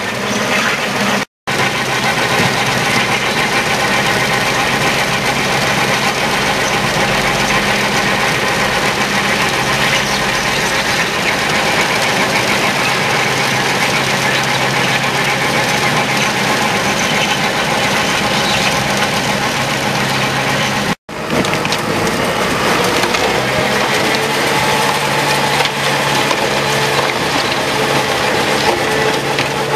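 Tractor engine running under load while a PTO-driven Valentini Rambo 1000 stone crusher grinds up the road surface, a loud, dense, steady crushing clatter. The sound breaks off for an instant twice, about a second in and about 21 seconds in.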